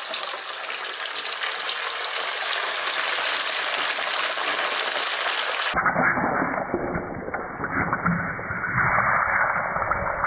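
Kole fish bones, fins and heads deep-frying in hot oil in a wok: a loud, steady sizzle. About six seconds in, the sizzle turns abruptly muffled and lower, with crackling.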